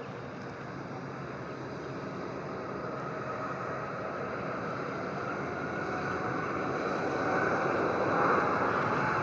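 Airbus A330-343's Rolls-Royce Trent 700 jet engines running, growing steadily louder with a faint whine that slowly rises in pitch.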